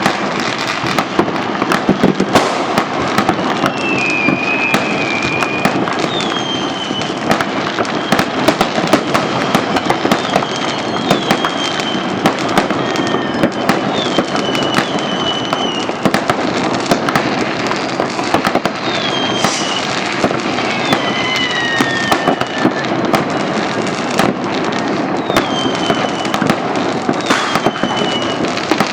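New Year's fireworks: a continuous barrage of bangs and crackling, with many short whistles falling in pitch.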